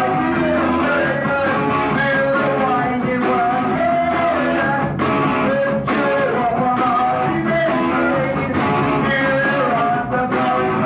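Punk rock band music: a male lead singer over electric guitar, bass and drums.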